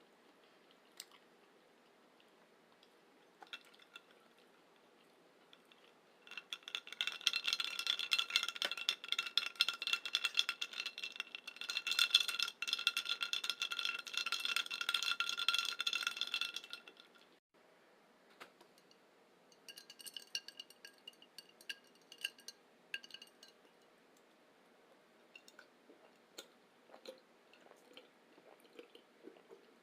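Rapid rattling clinks of something hard against ringing tableware, held at a few steady pitches: a long bout of about ten seconds, then a shorter, quieter one a few seconds later. Soft scattered eating clicks lie between.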